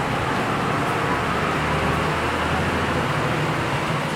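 City bus driving past on a wet road, its engine running low and steady over the hiss of tyres and rain.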